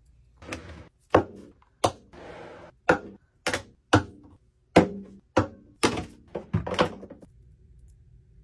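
Makeup products (glass foundation bottles, lip tints, a compact) being set down one at a time on a hard desktop: about a dozen sharp clacks over some six seconds, with a brief rummaging rustle about two seconds in.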